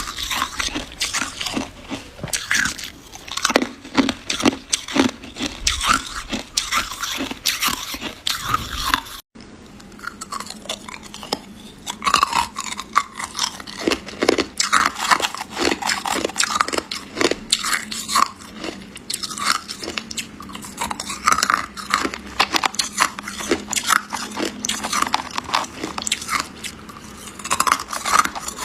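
Ice being bitten and chewed close up: a dense run of sharp, crackling crunches. There is a momentary break about nine seconds in, after which the crunching goes on.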